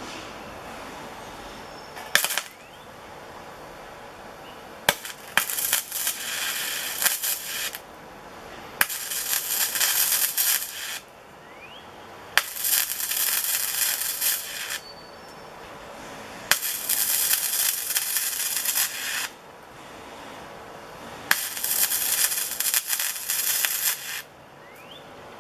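Wire-feed welding arc on thin sheet steel, struck in short stitches: a brief strike about two seconds in, then five runs of crackling sizzle lasting two to three seconds each, every one starting with a sharp crack. The YESWELDER 205DS is set to minus 10 inductance for a softer, wetter arc, which comes out a little softer.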